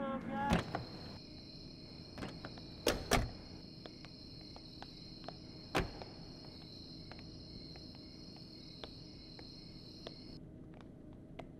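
Car door knocks and clunks: a knock, then two quick shuts close together, and another a few seconds later, with small ticks between. Under them is a steady high thin tone that cuts off suddenly near the end.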